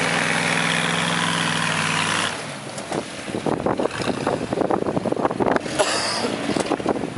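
Truck engine running loud and steady under load during a tow-strap pull of a pickup stuck in mud; it drops away abruptly about two seconds in. After that, wind gusts buffet the microphone.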